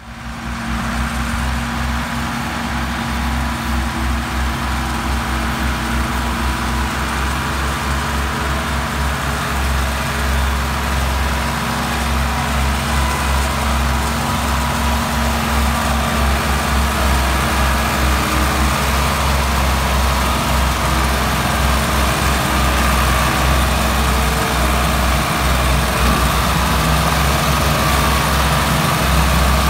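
Diesel tractor engines, a three-cylinder Ford 4610 and a four-cylinder Massey Ferguson 165, running hard together as they pull a loaded sugarcane trolley out of a field. The engines get a little louder toward the end.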